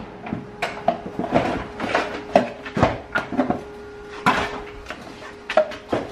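A hard plastic center-console assembly of a Tesla Model X being worked loose and lifted out of the cabin, giving a series of irregular knocks, clicks and rattles as it bumps against the surrounding trim, over a faint steady hum.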